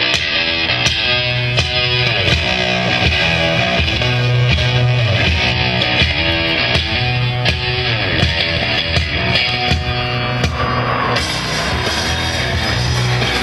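Rock music with electric guitar and drums, in a repeating pattern with a strong bass line. Near the end the music thins out under a rising rushing noise.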